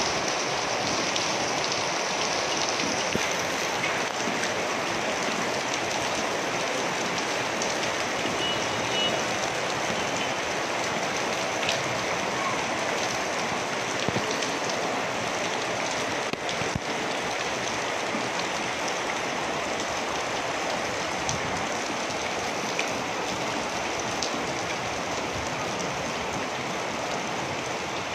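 Heavy rain falling steadily, a dense even hiss with a few faint sharp ticks scattered through it.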